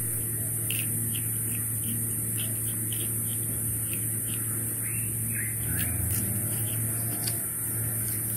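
A steady low hum and high hiss under faint small clicks every few tenths of a second: a baby vervet monkey biting and chewing fresh grass stems.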